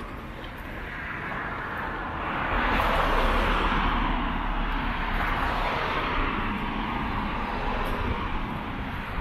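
Street traffic: a vehicle passing close by, its tyre and engine noise swelling about two seconds in and fading slowly.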